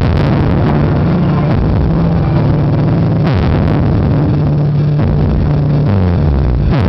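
Loud bass-heavy music played through a car sound system at high volume. Deep bass notes step from pitch to pitch about once a second, with a falling sweep about every three seconds.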